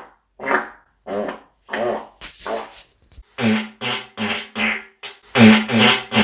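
A rapid string of more than a dozen short human farts, each a brief buzzy puff separated by silence, coming closer together and louder in the second half.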